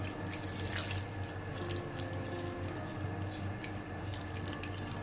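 Water pouring in a steady stream from a measuring jug into an electric pressure cooker's metal inner pot, splashing onto the cabbage rolls inside.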